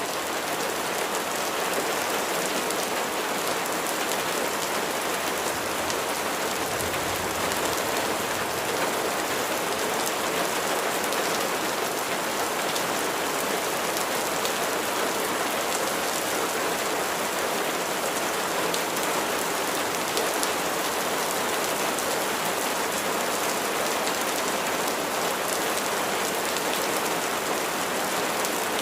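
Steady rainfall: an even wash of rain with many small drop hits, unchanging in strength.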